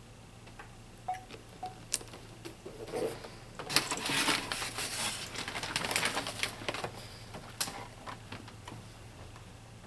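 Small plastic toys and packaging handled: a few sharp clicks, then several seconds of crinkly rustling, then a last click.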